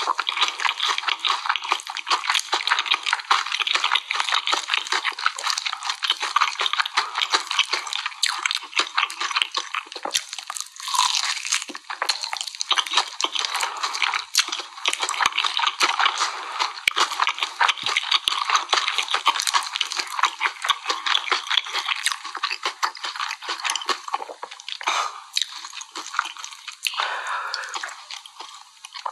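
Close-miked chewing and crunching of spicy sauce-glazed fried chicken, a dense run of small crackles with hardly a break.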